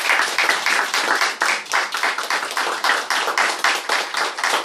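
Small audience applauding, many hands clapping in a dense, steady stream.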